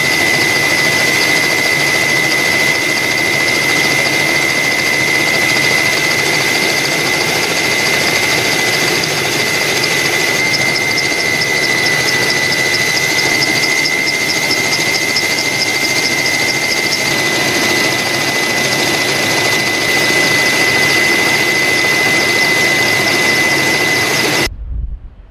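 Steady engine roar of a turbine aircraft heard from on board, with a constant high whine over it; it cuts off suddenly near the end.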